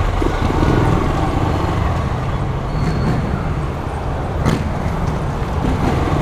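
Honda CG 125's single-cylinder four-stroke engine running steadily on the ride, with road noise and a sharp click about four and a half seconds in.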